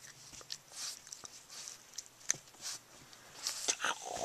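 A bulldog tussling with a hand and a cloth, play-biting on carpet: scattered short rustles, clicks and brief breathy noises, with no barking.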